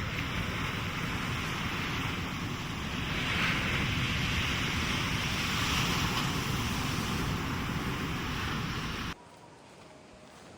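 Strong coastal wind buffeting the microphone, with surf hissing behind it. About nine seconds in it cuts off abruptly to a much quieter background.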